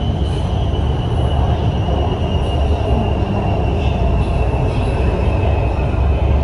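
Lahore Orange Line electric metro train running, heard from inside the carriage: a steady low rumble with a thin high whine that slowly falls in pitch.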